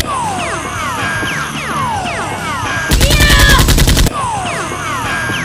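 Automatic gunfire sound effect: a rapid burst lasting about a second, about three seconds in. It plays over a run of repeated falling whistle-like zaps, about two a second.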